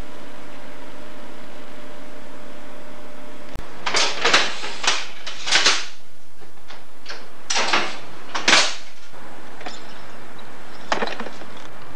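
Steady hum and hiss, then a click about three and a half seconds in. After that comes a run of loud clunks and rattles from a mechanical signal lever frame being worked by hand: levers and their catches moving in the frame. A few fainter clunks follow near the end.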